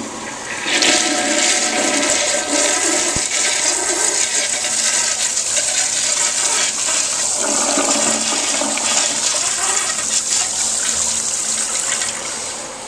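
Older Kohler Highcliff toilet flushing. A long, steady rush of water swirls down the bowl, building about a second in and dying away near the end. It is said to almost double flush.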